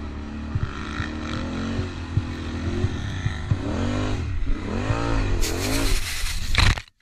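Quad bike (ATV) engine running, then revving up and down several times as it climbs the sand. A loud rushing noise follows as it crashes and sand sprays over the rider, cutting off abruptly.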